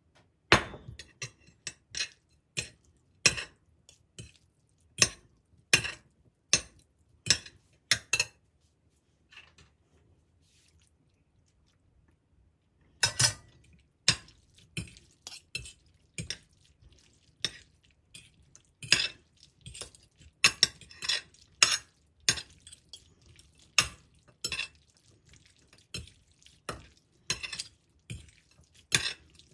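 Metal spoon and fork clinking and scraping against a ceramic plate as fettuccine is tossed, in irregular sharp taps. There is a few-second lull partway through.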